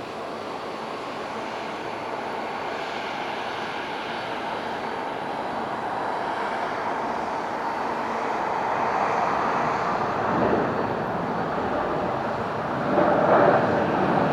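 Jet engine noise from a JAL Boeing 777-200ER (777-246ER). It is a steady rush that grows gradually louder and swells to its loudest near the end.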